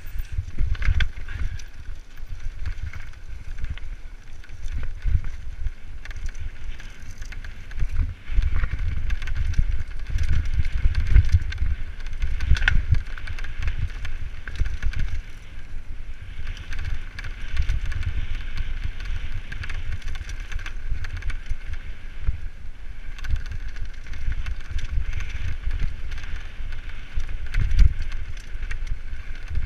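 Mountain bike rattling and jolting over loose stones on a fast rocky descent, with wind buffeting the microphone: a steady low rumble broken by irregular knocks, the hardest one near the end.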